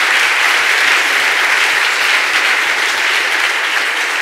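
Audience applauding, a steady dense clapping that slowly eases off.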